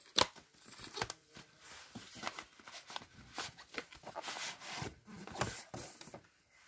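Nitrile-gloved hands handling paperboard glove boxes packed in a cardboard carton: irregular rustling and scraping of card against card, with a few light knocks.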